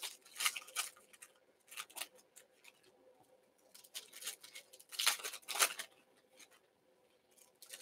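Foil football trading-card pack wrappers being crinkled and torn open by hand, heard as faint scattered crackles and rustles with a louder run of crinkling about five seconds in.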